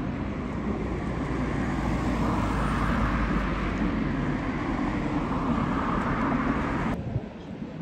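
A tram passing in the street: a steady rolling rumble that swells over the middle seconds. About seven seconds in it cuts off abruptly to quieter street noise.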